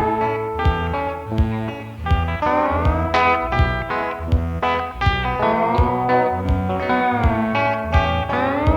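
Intro music: a slide guitar playing sliding notes over a steady bass and drum beat, in a blues or country style.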